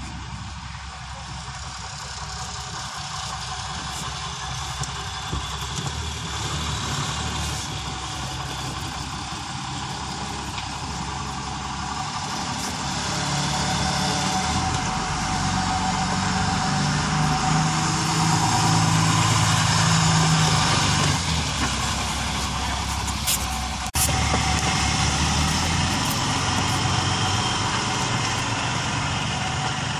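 Maruti Suzuki Wagon R's engine revving as the accelerator is pumped, getting louder over the first twenty seconds, then easing and running steady.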